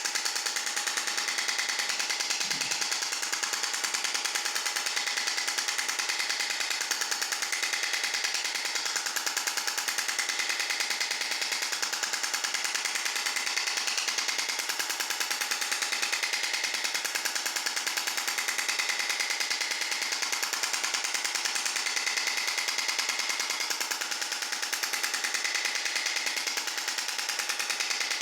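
Extracorporeal shock wave therapy device firing a rapid, even, monotonous train of clicking pulses at a steady level.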